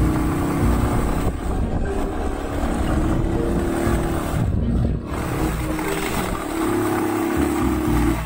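Small motorcycle engine running while riding, its note dropping and picking up again as the rider eases off and opens the throttle, with a brief dip about five seconds in.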